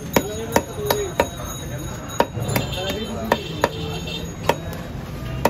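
Knife blade striking a wooden chopping block as a fish is cut: a string of about nine sharp, irregular knocks.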